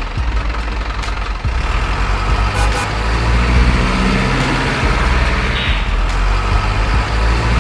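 Heavy diesel truck engine sound for a miniature RC dump truck, running steadily and growing louder about three seconds in as the truck moves off. There is a short hiss near the end.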